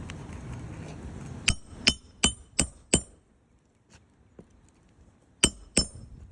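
Hammer driving roofing nails to fasten a replacement roof shingle: five quick ringing strikes about three a second, a pause, then two more strikes near the end.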